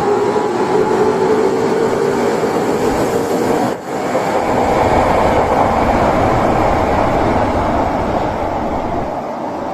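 Osaka Metro 22 series subway train running out of the station: steady noise of wheels and carriages on the rails as the cars go past, easing off over the last few seconds.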